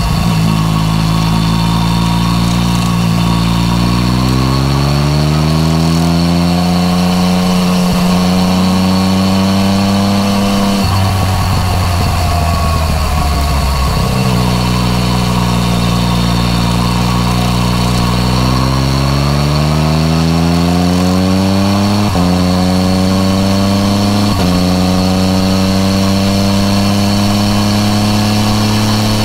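Yamaha MT-09 Tracer's three-cylinder engine through an Akrapovic titanium racing exhaust, heard from the rider's seat while riding: the engine note rises steadily under acceleration, falls back about a third of the way in, and rises again. Near the end the pitch steps abruptly twice as gears change, then holds steady.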